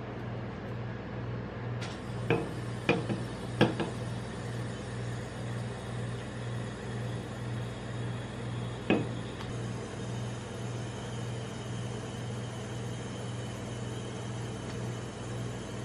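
Steady low hum of a rolled-ice-cream machine's cold plate, with a few sharp metallic taps and clinks about two to four seconds in and one more near nine seconds as an aluminium soda can is lifted off and set back on the steel plate.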